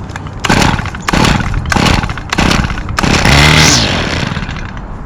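Toro 51936 string trimmer's 25cc two-stroke engine being pull-started cold on choke: four quick pulls of the recoil starter, then about three seconds in it fires briefly and dies away.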